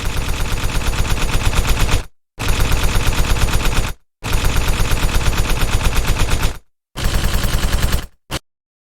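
Machine-gun sound effect: four bursts of rapid automatic fire separated by short gaps, then a brief final burst near the end.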